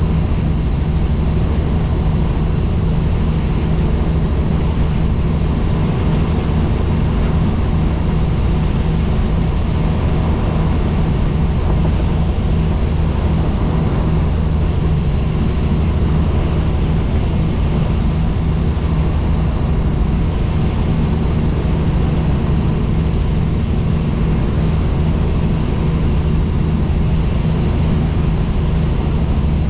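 Helicopter in flight: a steady, unchanging drone of the engine and rotor.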